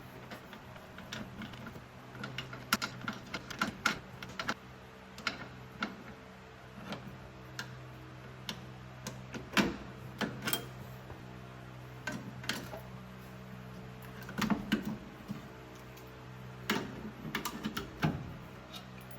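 Irregular metallic clicks, taps and clinks of hand tools and loose parts during drum brake disassembly, over a steady low hum.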